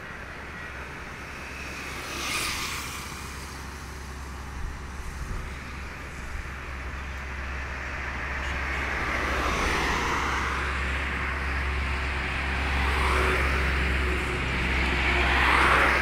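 Road traffic: vehicles passing on a road, their noise swelling and fading several times and loudest near the end, over a steady low rumble.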